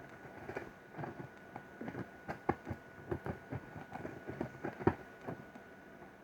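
Irregular knocks, taps and rustles of a box and its packaging being handled and opened.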